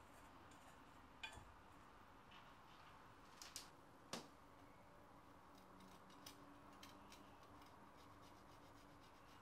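Near silence: faint room tone with a few soft clicks and ticks, the most distinct about a second in, twice around three and a half seconds in, and once just after four seconds.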